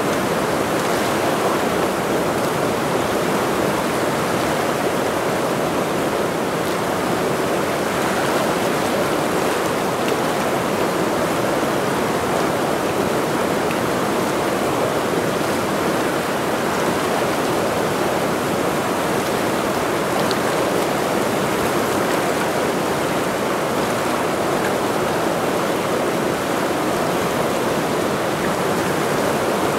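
Mountain river running fast: a steady, even rush of water with no break or change.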